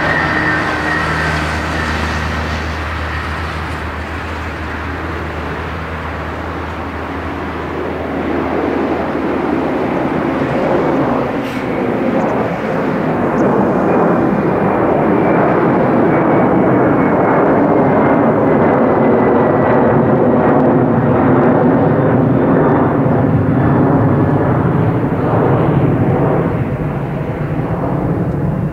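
Airbus A310-325's twin Pratt & Whitney PW4000 turbofans at takeoff power, a jet roar that builds as the airliner climbs toward and passes overhead about halfway through, then carries on as it climbs away. Through the pass a whine slides down in pitch.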